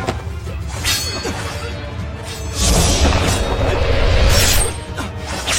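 Staged fight sound effects: quick whooshes and sharp crashing hits over dramatic background music.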